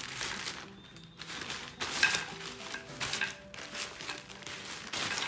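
Plastic packaging rustling and crinkling in short bursts, several times, as a wall-hanging shelf is pulled out of its bag.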